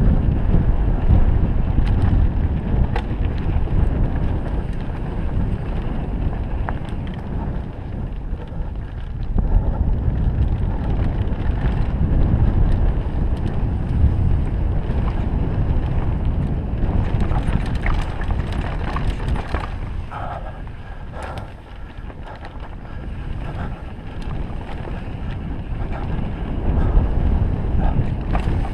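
Mountain bike descending a dirt and rock trail: tyres rolling over dirt and stones and wind buffeting the helmet camera's microphone make a steady rumble, with scattered clicks and rattles from the bike.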